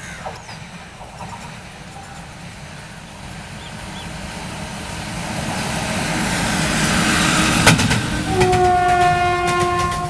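WAG-7 electric locomotive hauling a loaded rake of covered freight wagons, the rumble of its wheels growing louder as it draws close, with sharp rail-joint clicks near the end. About eight seconds in, its horn sounds in one long blast.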